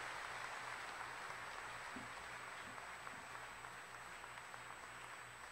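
Church congregation applauding, the clapping slowly fading.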